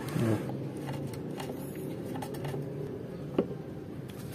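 Light handling noise from the stand mixer's opened gearbox as the idler roller and housing are worked by hand: a few small clicks and taps, one sharper click about three and a half seconds in, over a steady low hum.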